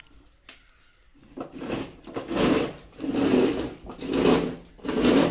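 Plastic wheels of a toy ride-on jeep rolling and rattling over patio tiles, coming in rumbling surges about once a second as a child scoots it along with his feet.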